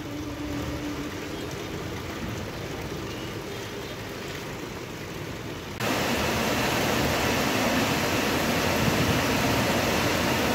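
Rain pouring steadily on a street and trees, a dense hiss. It steps up suddenly about six seconds in to a louder, brighter downpour, after a quieter steady rush at the start.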